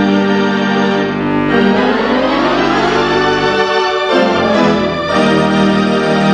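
Music: held, organ-like keyboard chords, with a sweep rising in pitch through the middle and a change of chord about four seconds in.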